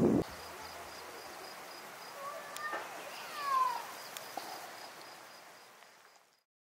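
Music and engine sound cut off abruptly, leaving quiet outdoor ambience. A high, evenly pulsing insect chirp runs under a few bird calls in the middle, with a couple of faint clicks, and everything fades out near the end.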